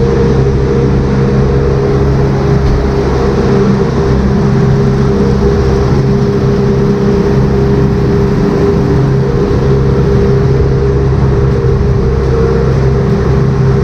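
Tractor engine running steadily, a continuous drone that holds the same pitch throughout, as the tractor works a plow cleaning out the feed bunks.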